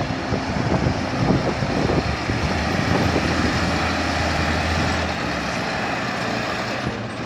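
Tatra eight-wheel dump truck's diesel engine labouring under load as it climbs a steep gravel bank, with a steady low drone whose note shifts about five seconds in.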